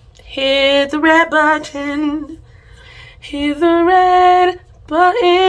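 A woman's voice singing a short sing-song tune in three phrases, the second and third ending in long held notes.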